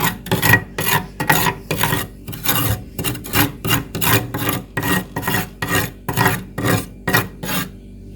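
Frost in a freezer being scraped in quick, repeated rasping strokes, about two to three a second, which stop abruptly near the end.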